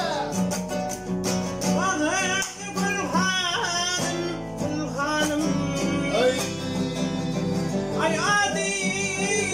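A man singing a Turkmen song to his own strummed classical guitar, with sung phrases rising and falling over steady chords.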